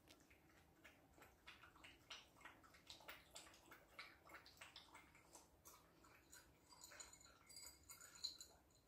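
Puppy feeding at its kibble and water bowls: a faint run of quick clicks and smacks from its mouth at the bowls.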